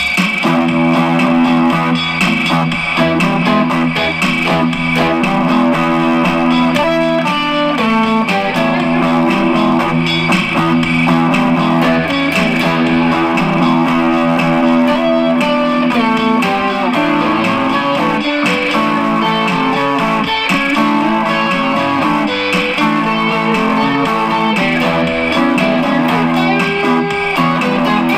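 Electric guitar music, played on a 1973 Gibson L6-S through a Fender Hot Rod Deluxe III amp with no effects pedals.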